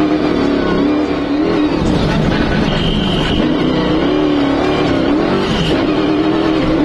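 Optimus Evo 4 rally-raid buggy's engine running hard, heard from inside the cockpit, its pitch dipping and climbing again several times as the throttle is lifted and reapplied. A thin high whine comes in for about three seconds in the middle.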